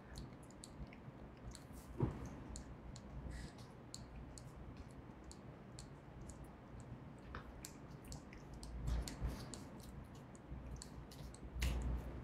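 Faint, scattered small clicks over quiet room tone, with a soft knock about two seconds in.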